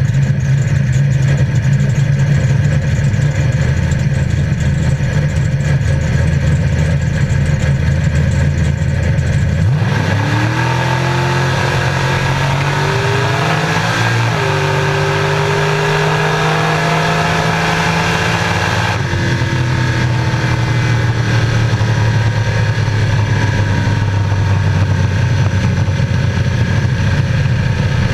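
An 850 hp 1968 Firebird drag car's engine, heard from inside the cabin. It runs at a steady low idle, then launches about ten seconds in, its note climbing hard with a brief drop at a gear change. Some nine seconds later it comes off the throttle and the note falls away as the car slows.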